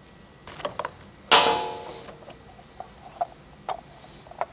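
Hand-tool work on a lawn mower wheel: one sharp metal clank about a second in that rings on briefly, then scattered light clicks and taps as the wheel's bolt and cover are worked loose.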